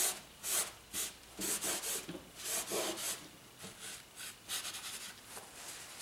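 Paper towel rubbing and scrubbing over wet oil paint on a canvas, wiping the paint thin in a series of irregular strokes that grow fainter in the second half.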